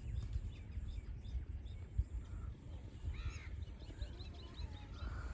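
Low wind rumble on the microphone, with faint bird calls over it: one arched call a little past three seconds in, followed by a quick run of small chirps.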